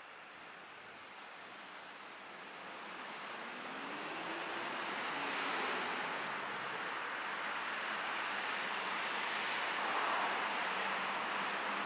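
Road traffic: a vehicle's noise grows over the first few seconds and stays loud, with a faint engine tone rising and falling as it passes.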